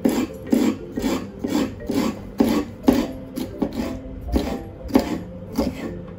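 Chef's knife slicing a green bell pepper on a wooden cutting board: a steady run of knife strokes, about two a second, each a short rasp ending in a knock on the board.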